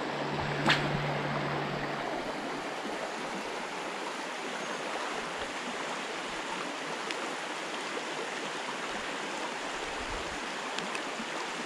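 Steady rushing of a fast, flood-swollen creek pouring over a riffle of small rapids, with one sharp click about a second in.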